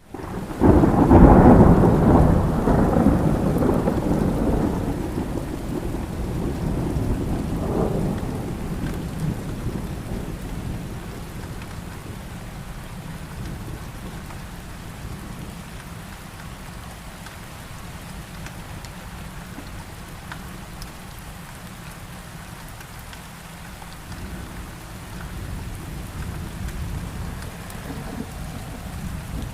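Thunderstorm: a loud clap of thunder about a second in rolls on and fades over the next several seconds, over steady rain. A quieter rumble of thunder builds again near the end.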